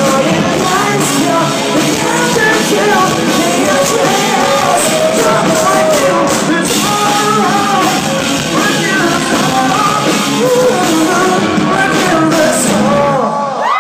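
Rock band playing live at full volume, with the lead singer's voice over the band; the music stops abruptly about a second before the end as the song finishes.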